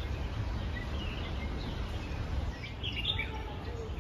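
Small birds chirping in short, high calls, a few about a second in and a cluster near three seconds, over a steady low background rumble.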